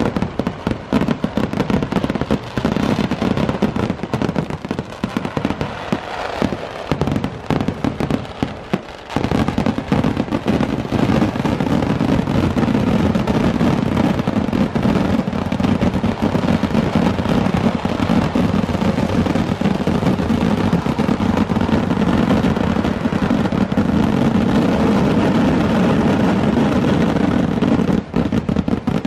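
Kerala vedikettu fireworks display: a dense, continuous barrage of firecracker explosions that thickens into an unbroken wall of bangs about nine seconds in and thins slightly near the end.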